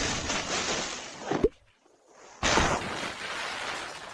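Stormy weather noise, a rush of wind and rain that fades, breaks off with a sharp click about a second and a half in, then after a short silence starts again suddenly and fades.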